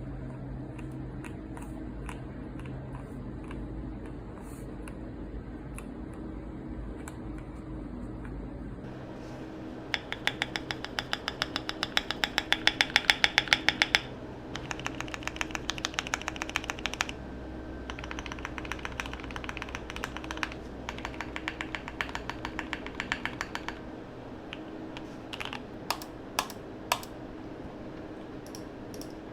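Typing on a Keychron Q1 mechanical keyboard with lubed Gateron Milky Yellow linear switches. Light scattered key presses give way to fast runs of keystrokes about ten seconds in, loudest around twelve to fourteen seconds, and then scattered single presses near the end.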